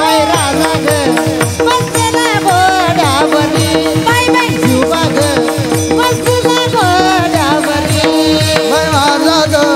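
Marathi Warkari devotional singing by male voices, accompanied by fast, even strokes of small hand-held taal cymbals and drumming, with a steady held note beneath.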